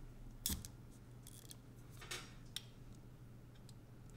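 Faint handling noises of small electronics parts being worked with a hand pry tool: a few light clicks and scrapes, the loudest about half a second in and two more around two seconds in.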